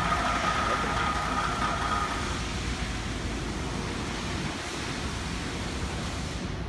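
Meta-Lax vibratory stress-relief unit shaking a welded thumb during its ramp, with a steady noisy hum. A high whine sits on top and fades out about two seconds in. This unit has been stopping its ramp early and making weird sounds.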